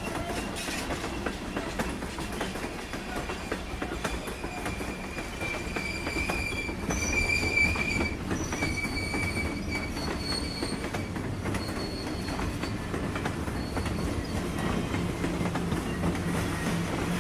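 Train passing close by: a steady rumble with wheels clacking over the rail joints, and high-pitched wheel squeal that comes and goes through the middle, loudest about halfway through.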